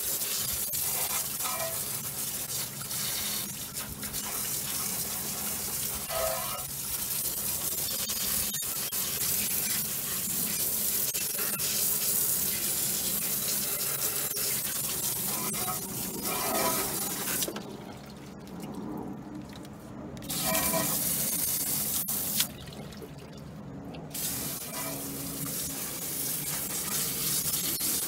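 Water hissing from a garden hose spray nozzle as it is sprayed onto a car's front suspension and brake parts in the wheel well, rinsing off cleaner. The spray stops twice for a couple of seconds, about two-thirds of the way through and again shortly after, then starts again.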